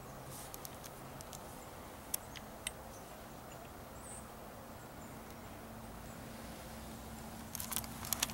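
Quiet woodland background with a few faint, scattered clicks and crackles, then a quick run of louder crackling clicks near the end, like dry leaves and twigs or handling noise close to the microphone.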